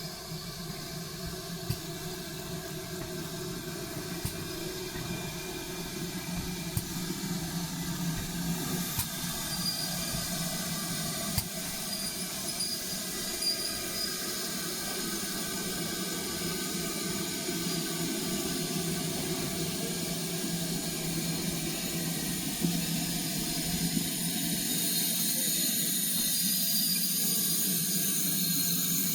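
GWR Modified Hall 4-6-0 steam locomotive hissing steam steadily while moving slowly, growing gradually louder, with a few faint knocks.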